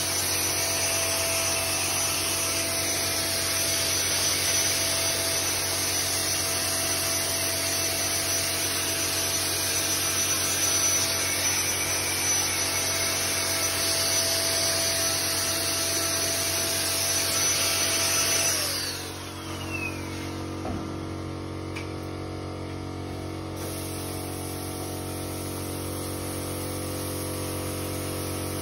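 Motor-driven spray equipment running with a steady rushing hiss and a constant whine while chrome solution is sprayed. About 19 seconds in it is switched off and its whine falls away as it spins down, leaving a lower steady motor hum.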